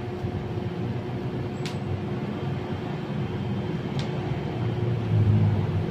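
Steady low background rumble with a constant hum, rising a little about five seconds in, and a few faint sharp clicks about one and a half seconds in, four seconds in and at the end.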